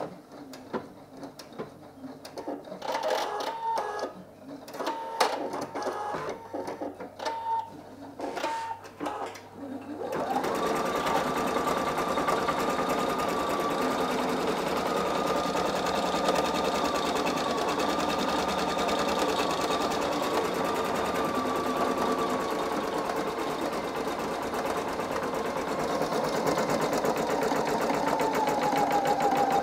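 Singer EM9305 embroidery machine stitching out a design, the needle bar running under its motor. For about the first ten seconds it gives uneven, quieter clicks. Then it settles into a loud, steady run with a whine, and the pitch falls near the end as it slows down for long stitches.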